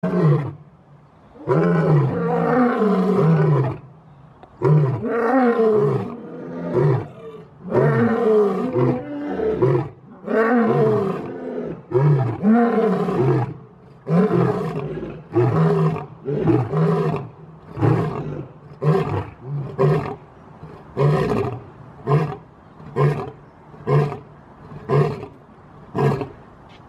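A lion roaring: a bout of several long, deep roars of about two seconds each, then a run of short grunting roars about one a second, each shorter than the last.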